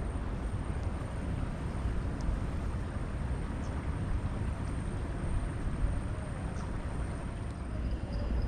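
Wind buffeting the microphone: a steady, gusty low rumble, with a few faint ticks.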